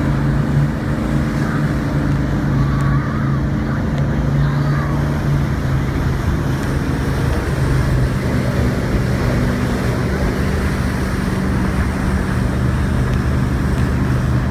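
Motorboat engine running steadily at speed, its hum over the rush of wake water and wind; the engine note shifts slightly about halfway through.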